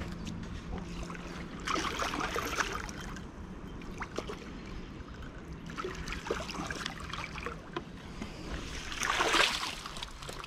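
Hooked fish splashing at the water's surface as it is reeled in and netted, with two louder bursts of splashing, about two seconds in and again near the end.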